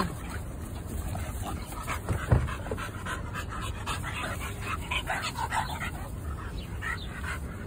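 Dogs panting while they wrestle in play, in a run of short, quick breaths, with a single sharp thump a little over two seconds in.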